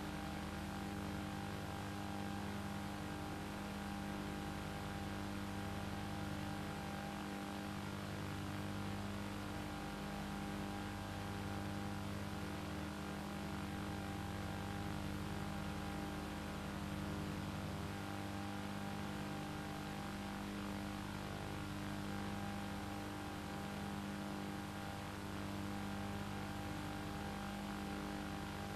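Steady hum with several fixed tones over hiss and a slowly wavering low rumble, unchanging throughout, like a running motor or an electrical hum on an old soundtrack.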